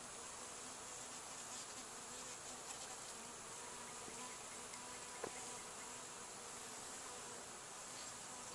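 Honeybees buzzing over the frames of an opened hive, a faint, steady hum. A single faint click about five seconds in.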